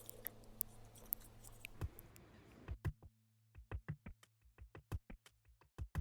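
Faint hiss and steady hum, then about three seconds in, sparse electronic outro music begins with short, crisp percussive beats.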